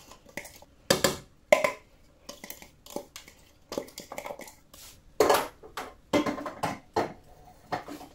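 Food-processor bowl knocking and scraping against the rim of a metal cooking pot as shredded raw vegetables are tipped and scraped into it: a series of irregular clatters and knocks.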